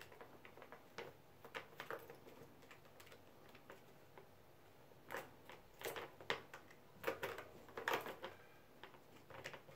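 Blue plastic three-tier ball-track cat toy clicking and rattling as a kitten paws at the balls inside it, in irregular light taps that come thicker and louder from about halfway through.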